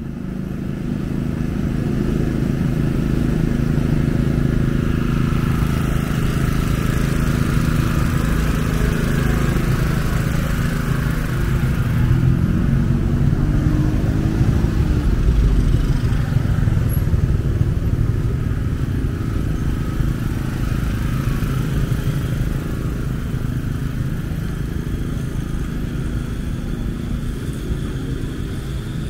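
Road traffic: cars and motorcycles running steadily past, fading in over the first couple of seconds, with one engine rising in pitch as it passes around the middle.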